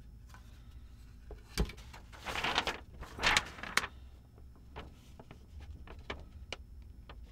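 Handling of small hard objects: a sharp knock, two short scraping or rustling sounds, then scattered light clicks.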